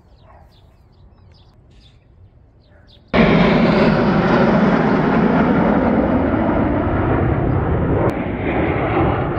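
Loud, steady jet engine noise from a formation of six U.S. Air Force Thunderbirds F-16 fighter jets flying overhead. It cuts in suddenly about three seconds in, after a quiet stretch with faint bird chirps.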